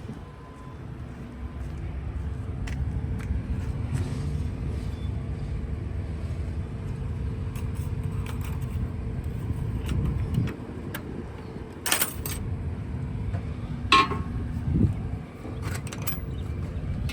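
A semi-truck's diesel engine idling with a steady low rumble. A few sharp metallic clanks and rattles come about twelve, fourteen and sixteen seconds in.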